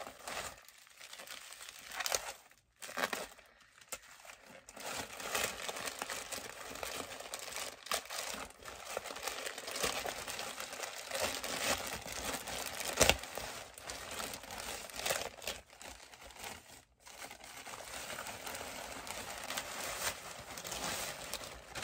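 Plastic poly mailer bag and tissue paper crinkling and rustling as the package is opened and the item unwrapped by hand, in uneven bursts with a few brief pauses and one sharper, louder crackle about thirteen seconds in.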